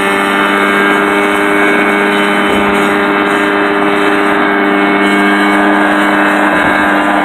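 Rotax 503 two-cylinder two-stroke engine of a Mosquito ultralight helicopter running at high power at a steady pitch, together with its spinning main rotor, as the helicopter lifts off the ground into a low hover late in the clip.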